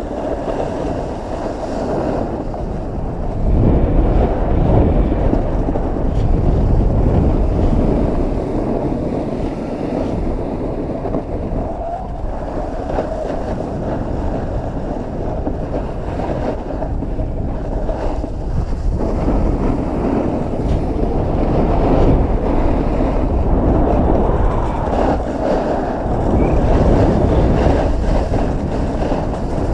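Wind buffeting the microphone of a skier's camera during a fast downhill run, over the steady hiss and scrape of skis on packed snow. The noise swells and eases as the skier speeds up and turns.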